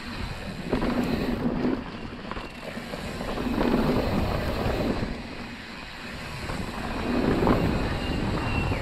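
Mountain bike riding down a dirt singletrack: tyres running over the rough ground and the bike rattling, under wind buffeting the microphone. The noise swells and eases with the terrain.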